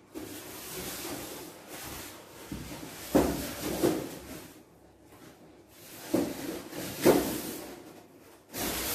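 Unboxing packaging being handled: a rustling of plastic and cardboard with several sharp knocks and bumps between about three and seven seconds in, and a louder burst of rustling near the end.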